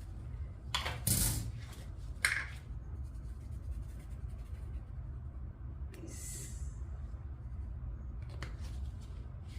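Kitchen handling sounds as salt is added to flour-coated chicken wings: a few clinks and knocks in the first couple of seconds and a short shaking rustle about six seconds in, over a steady low hum.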